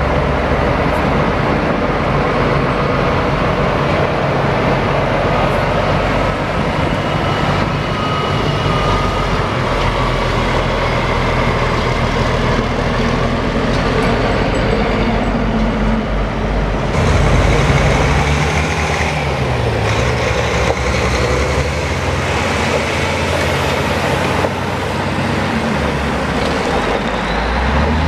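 Heavy dump truck diesel engines running, with steady road traffic noise. About halfway through, the sound gets louder and brighter as a truck comes close, and its engine pitch dips and then rises again.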